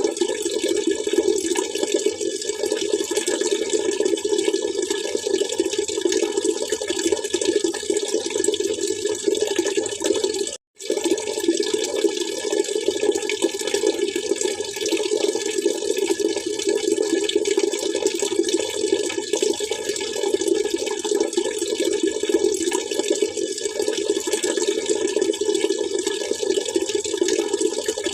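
Water splashing and trickling continuously and evenly, cutting out for a split second about ten seconds in.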